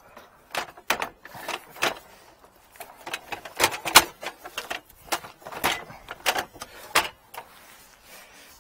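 Irregular clanks and rattles of metal gear being handled and stowed on a work truck's ladder rack and toolbox, the loudest knock about four seconds in.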